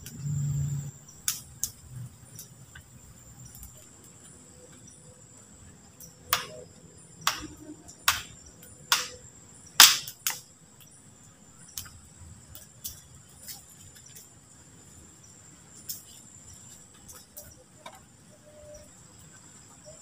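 Steady high-pitched chirring of crickets or other night insects, with a run of sharp cracks and knocks in the middle, about half a dozen, the loudest near the end of the run.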